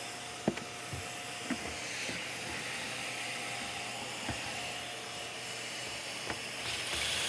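Shop vacuum running through the dust-collection hose on a pocket-hole jig, a steady hiss with a few light knocks as the plywood and jig are handled. Near the end it grows louder as the drill bores a pocket hole.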